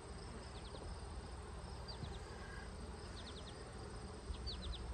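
Honey bees buzzing around an open hive with a frame of brood lifted out, a steady low hum. Short high chirps in groups of three or four repeat every second or so over it.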